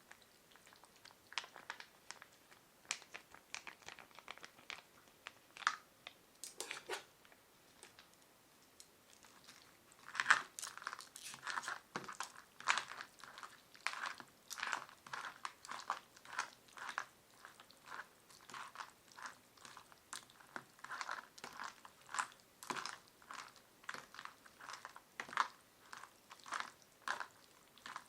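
Close-up chewing of cold, chewy ramen noodles, with sharp wet mouth clicks. The clicks are sparse at first and come thick and fast from about ten seconds in.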